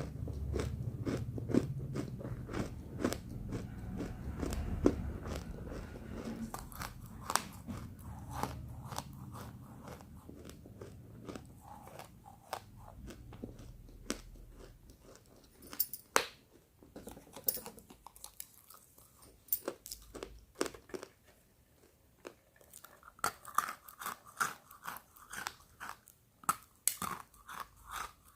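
Roasted pink chalk being bitten and chewed: dense crunching over steady chewing, thinning out from about halfway into sparser, sharper cracks.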